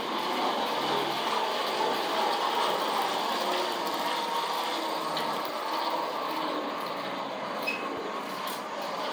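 Early Lionel 2 7/8-inch gauge electric toy trolley running on its track: a steady whirring rattle of its small motor's gears and its wheels on the metal rails, with one faint click near the end.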